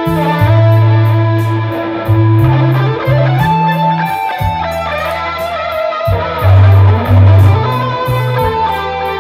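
Electric guitar played through an Axe-Fx III amp modeller, improvising a lead line with a slide up in pitch about three seconds in. Beneath it runs a backing track of held bass notes and a steady ticking hi-hat beat.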